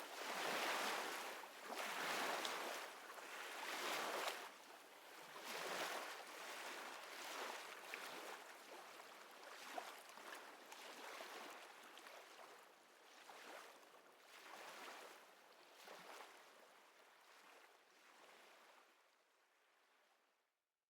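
Ambient water sound: washing swells about every one and a half to two seconds, fading out gradually to silence near the end.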